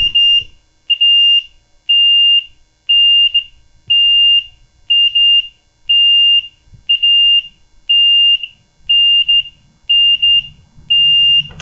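A mobility scooter's electronic warning beeper sounding a single high tone, about half a second on, about once a second, twelve times in a row. The scooter is in a fault state tied to its throttle, which drops it into reverse as soon as it is switched on.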